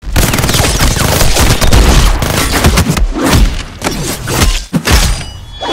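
Dubbed-in gunfire sound effects: a rapid, dense volley of shots for about three seconds, then fewer, more spaced heavy hits.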